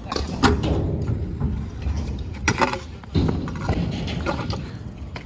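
Stunt scooter rolling on concrete with a low rumble, broken by sharp clacks and thuds as the scooter hits the ground: one about half a second in, two close together around two and a half seconds in, and another near the end.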